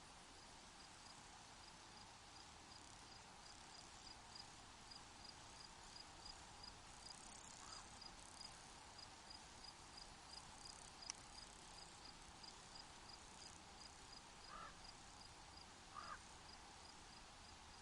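Faint steady hiss with a small animal's high, even chirp repeating about two to three times a second. There are a few fainter, lower calls about halfway through and near the end, and one sharp click.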